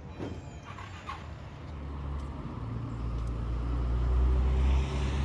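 Low rumble of a passing motor vehicle, growing steadily louder through the second half.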